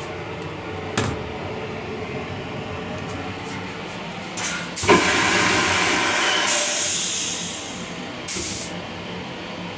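M7 railcar toilet flushing: a short hiss, then a loud rush of air and water lasting about two and a half seconds that fades away, and another brief hiss about a second later. The steady running noise of the moving railcar lies under it all.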